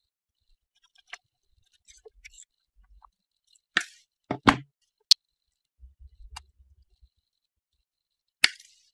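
Diagonal side cutters snipping thin metal wire leads: a handful of short, sharp snaps, the loudest about four to five seconds in and another near the end, with fainter handling clicks between.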